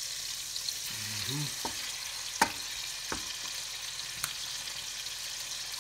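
Salmon pieces sizzling in olive oil and butter in a stainless steel skillet, a steady high hiss. A few sharp clicks sound over it, the loudest about two and a half seconds in.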